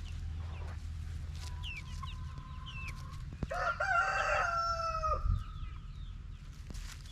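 A rooster crowing once, a loud call that starts about halfway through, is held for under two seconds and then stops abruptly.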